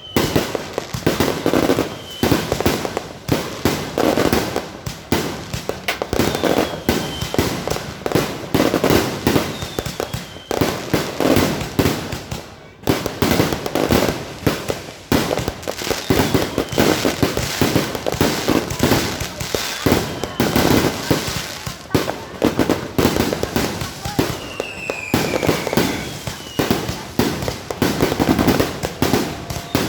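Fireworks going off without a break: a dense, rapid string of bangs and crackling reports, with a few short falling whistles here and there.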